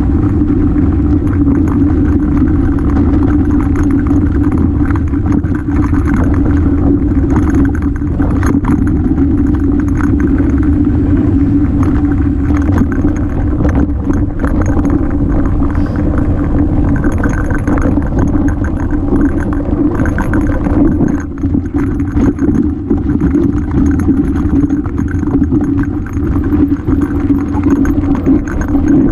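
Mountain bike rolling down a rocky trail, heard from a camera on the rider: a loud, steady rumble of knobby tyres and wind on the microphone, broken by frequent short rattles and knocks as the bike goes over rocks.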